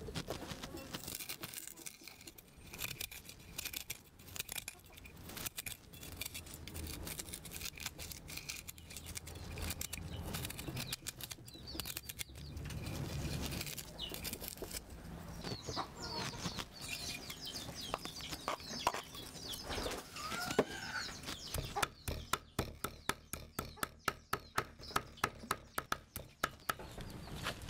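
Cleaver chopping on a thick wooden chopping block, ending in a fast, even run of about four strokes a second as it minces prohok (fermented fish paste). Chickens cluck in the background around the middle.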